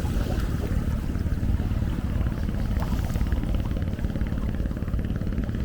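Ocean surf: a steady, deep rumble of waves with no distinct breaks or swells.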